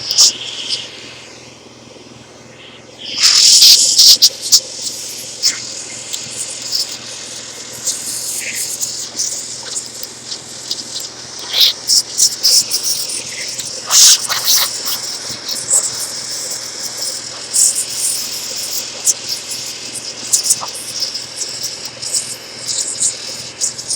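Mild compressed air and vacuum suction being worked over a car radio chassis to clear iron filings and dirt. The air hisses in irregular bursts from about three seconds in, with frequent sharp clicks and ticks as the nozzle and debris hit the metal, over a faint steady hum.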